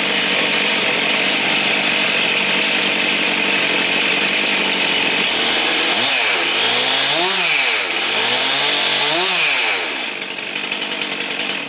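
Stihl MS 362 two-stroke chainsaw engine running loud while driving a boat-motor attachment's propeller spinning in the air, unloaded. About six seconds in it is revved up and back down twice, then drops to a lower, uneven running speed near the end.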